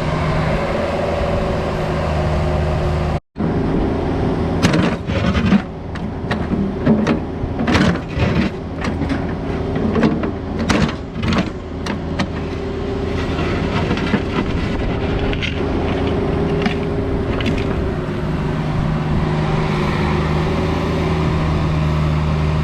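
Cat 304 mini excavator's diesel engine running steadily, with a run of sharp metal clanks and knocks from about five to twelve seconds in.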